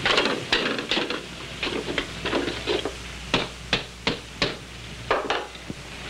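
Sharp knocks and clatter of hard objects being handled and set down, irregular at first, then four quick, evenly spaced knocks about three seconds in.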